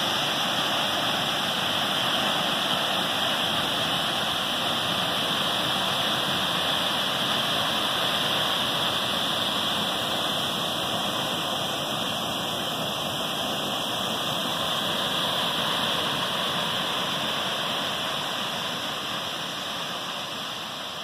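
Waterfall plunging over a rock face into a pool: a steady rushing roar of falling water, fading out near the end.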